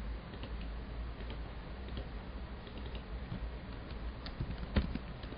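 Faint scattered clicks of a computer keyboard and mouse, the loudest a little before the end, over a steady low hum.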